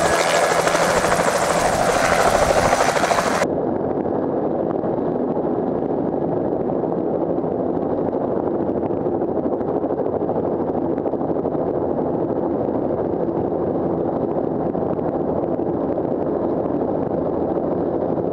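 Bell 206 JetRanger helicopter hovering low, its turbine and rotors running steadily. For the first three and a half seconds it is heard full and a little louder from the ground; then it cuts to a duller, muffled, even running sound from a camera mounted on the aircraft.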